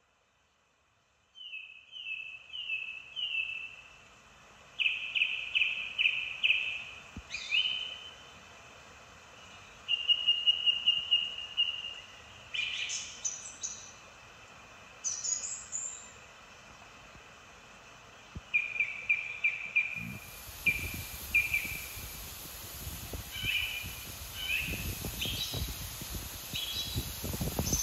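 Small birds calling and singing in short series of quickly repeated high notes, with one longer trill. About two-thirds of the way in, gusty wind on the microphone and rustling reeds join in.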